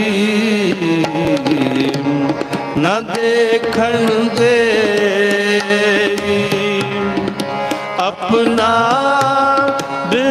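Sikh kirtan: harmoniums playing a sustained melody over a steady tabla rhythm, with a voice singing gliding phrases.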